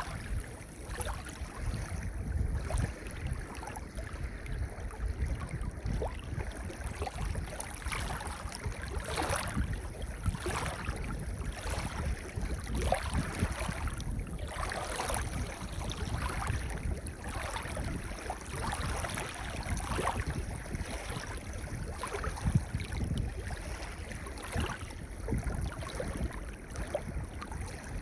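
Gentle ocean waves washing onto a pebble beach: a steady rush of surf with a low rumble, and the scattered clatter of pebbles rolling in the water.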